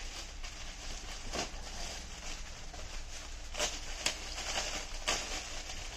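Purdahs being handled: a few brief rustles and knocks, about four in all, against a steady low hum.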